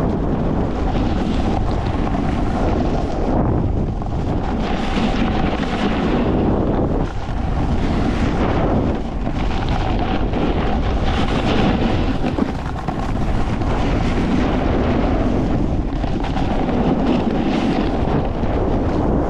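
Heavy wind buffeting on the microphone of a camera carried by a snowboarder riding fast down a groomed piste, with the hiss of the board scraping over the snow swelling and fading in surges through the turns.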